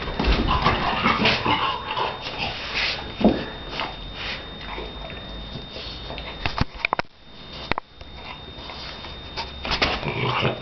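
A Shar Pei dog playing close to the microphone: dog noises mixed with scratches and knocks against the tiled floor and the camera. A short cry rises and falls about three seconds in, and things go quieter for a moment around seven seconds.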